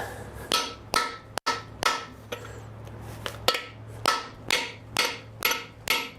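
Hammer blows on a stuck piston in a 350 Chevy small-block's cylinder, struck about twice a second with a short pause in the middle, each with a brief metallic ring, driving out a piston seized by rust.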